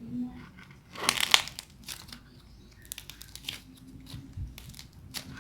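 Dried clay crust crackling and crunching as it is squeezed and broken by hand: a loud cluster of cracks about a second in, then scattered smaller crackles.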